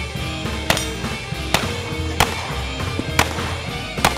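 Revolver shots: about five sharp cracks, a little under a second apart, over background music with a steady beat.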